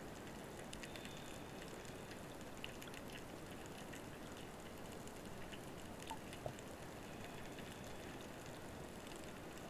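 Underwater ambience picked up by a camera in a waterproof housing: a steady hiss of water with scattered faint clicks and ticks, one a little louder past the middle.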